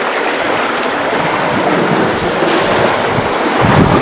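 Steady wash of surf on a sandy beach, with wind buffeting the microphone in a low rumble near the end.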